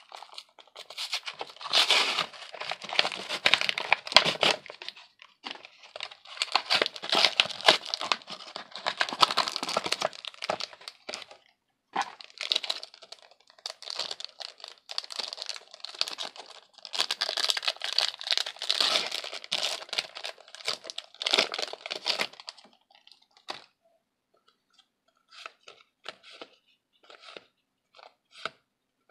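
Foil wrapper of a Yu-Gi-Oh! booster pack being torn open and crinkled in the hands, in several long bursts of rustling and crackling. Near the end only a few short, soft rustles remain as the cards are handled.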